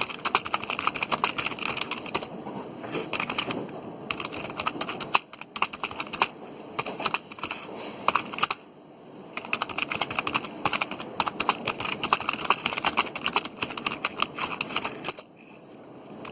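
Rapid typing on a computer keyboard: a dense run of key clicks, broken by short pauses about five seconds in, around eight and a half seconds in, and near the end.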